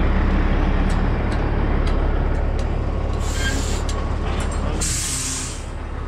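Heavy diesel truck idling with a steady low rumble. Short hisses of air come from its air system about three seconds in, and a longer one about five seconds in.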